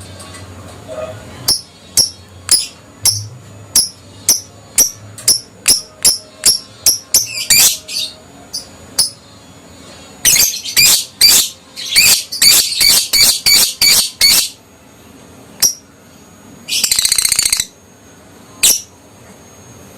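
An adult lovebird calling: sharp, high chirps about two a second, then a fast chattering run of chirps, and near the end a short harsh buzzing trill.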